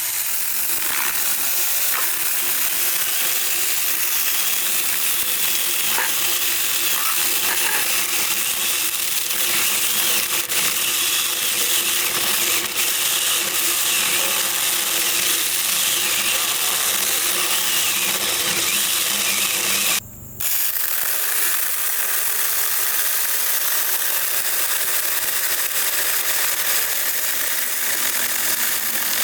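Saker 6-inch cordless mini chainsaw running under load, its chain cutting through a thick log. The cut is slow-going. The sound is steady, apart from a brief stop about twenty seconds in.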